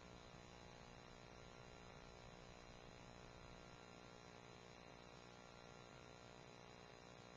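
Near silence: a faint, steady hum and hiss.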